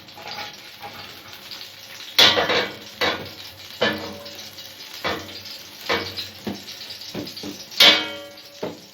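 Metal baking trays and utensils clattering: a series of separate knocks about once a second, the loudest near the end with a short metallic ring.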